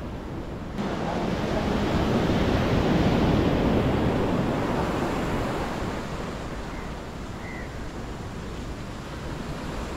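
Sea surf breaking and washing up a sandy beach: a rushing wash that swells to its loudest about three seconds in and then eases, with some wind on the microphone.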